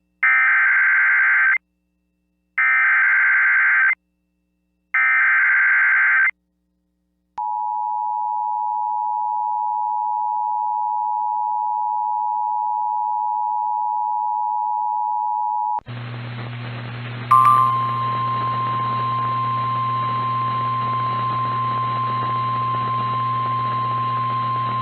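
Emergency Alert System broadcast: three short bursts of SAME digital header data, then the two-tone EAS attention signal held for about eight seconds. It then switches to NOAA Weather Radio receiver audio, a hiss with a low hum, and about a second and a half later the steady 1050 Hz weather radio warning alarm tone starts.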